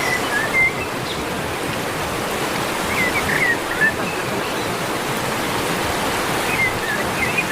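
Waterfall in full flood: a loud, steady rush of heavily falling water. A few short, high chirps sound over it at the start, in the middle and near the end.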